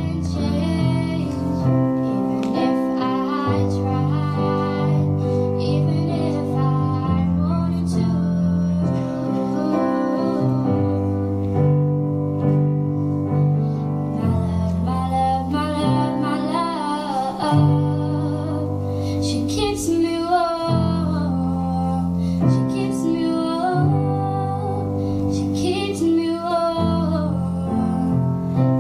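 A girl singing a slow ballad live into a microphone, accompanied by a keyboard piano playing sustained chords.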